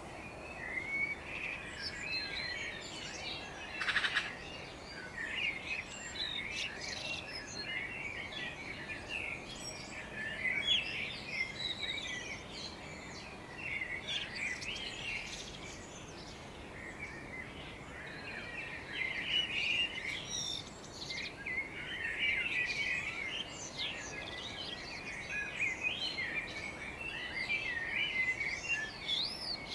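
Morning chorus of several songbirds chirping and singing, many short overlapping chirps and warbles, over a faint steady background hiss. A brief louder sound stands out about four seconds in.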